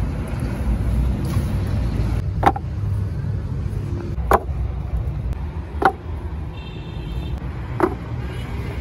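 Four sharp knocks, one every one and a half to two seconds, as filled metal roof-tile molds are set down on a stack of molds, over a steady low rumble.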